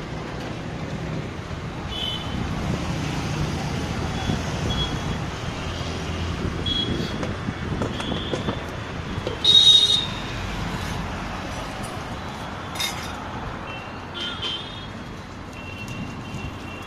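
Steady road traffic running past, with several short vehicle horn toots; the loudest, a high horn blast, comes about halfway through.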